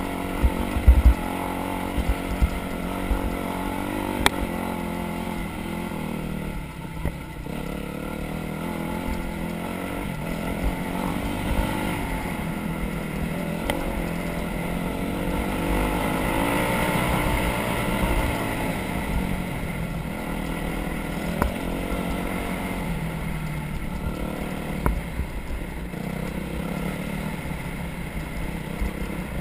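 Off-road vehicle engine running as it is ridden along a trail, its pitch rising and falling as the throttle opens and closes. A few sharp knocks come about a second in.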